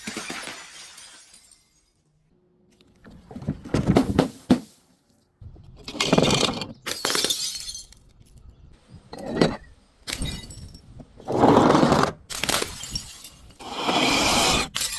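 Glass bottle being crushed and shattering, in about half a dozen crunching, crackling bursts with short pauses between them.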